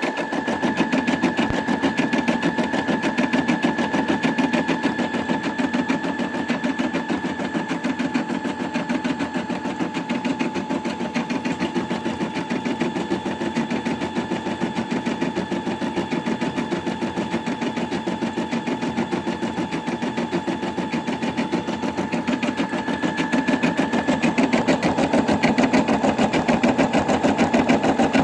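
Brother Innov-is M280D embroidery machine stitching out a design: a fast, steady run of needle strokes over a continuous motor whine, a little louder near the end.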